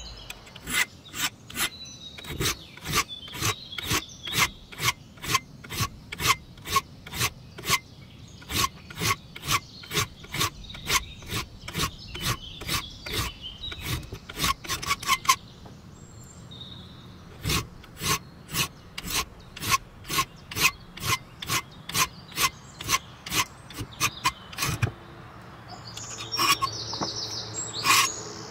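Hand file rasping across the edge of a steel knife blade cut from a worn circular saw disc: quick, even strokes, about three a second, with a short break about halfway through, the strokes stopping near the end.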